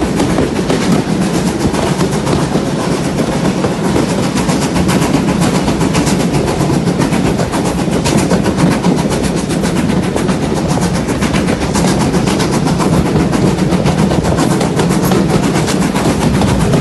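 Steam-hauled heritage train carriage running along the track, heard from an open carriage window: a loud, steady rumble with a rapid clatter throughout.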